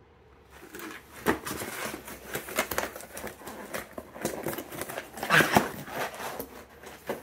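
Cardboard cartons of frozen meat being handled in a cardboard shipping box: scraping and rustling with sharp knocks, the loudest a little over a second in and again about five and a half seconds in.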